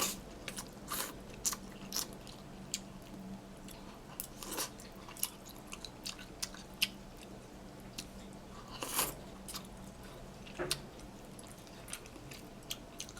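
A person eating noodles close to the microphone: short irregular chewing and mouth smacks, with a couple of louder slurps about nine and ten and a half seconds in, over a faint steady hum.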